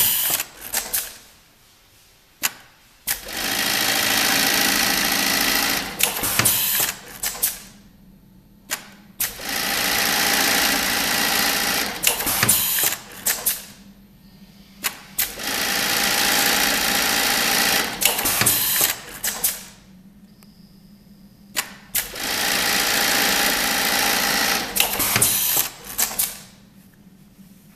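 Brother 980 industrial eyelet buttonhole machine sewing keyhole buttonholes in denim: four runs of about three seconds of fast, even stitching, each followed by a cluster of sharp mechanical clacks, with quiet pauses between.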